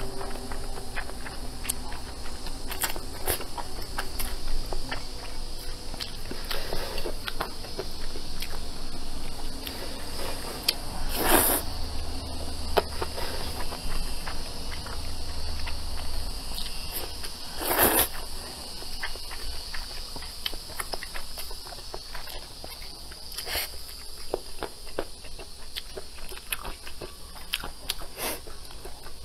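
Close-up eating sounds: Nanchang mixed rice noodles being slurped and chewed, a steady run of small wet clicks with louder slurps about eleven and eighteen seconds in.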